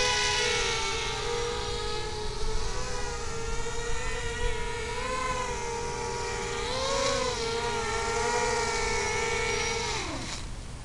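Mini quadcopter's electric motors and propellers whining steadily, the pitch wavering with throttle and briefly rising about seven seconds in. Near the end the whine drops sharply in pitch as the motors spin down.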